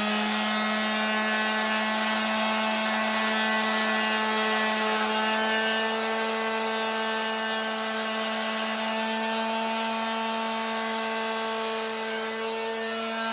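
Electric palm sander running at full speed, a steady motor whine, sanding a wooden spear shaft.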